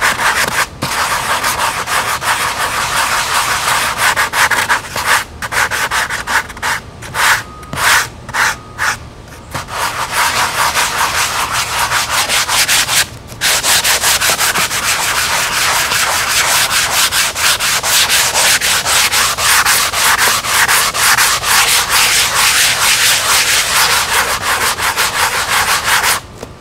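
Hand sanding a spackle-coated foam model-airplane wing with a sanding sponge: rapid back-and-forth scrubbing strokes. The strokes turn choppier about a third of the way in and stop briefly about halfway. The wing is being smoothed of its ridges and bumps.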